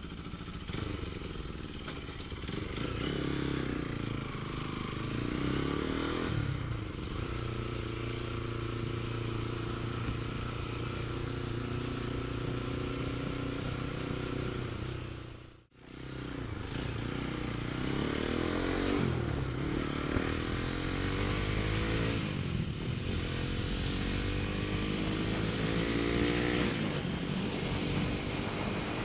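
Bajaj Pulsar NS200's single-cylinder engine running under way, its pitch rising again and again as the bike accelerates through the gears. The sound drops out for a moment about halfway through.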